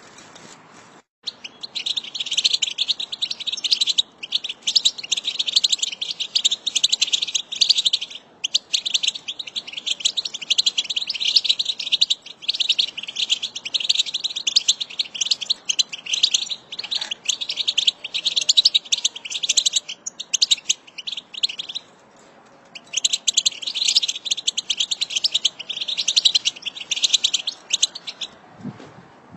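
A flock of European goldfinches twittering together in dense, rapid, high chirps. The chatter begins about a second in, with a few short breaks.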